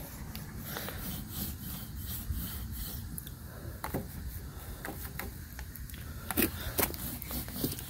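Small sponge roller rolling boiled linseed oil over a painted wooden shield: repeated rubbing strokes, with a couple of sharp clicks near the end.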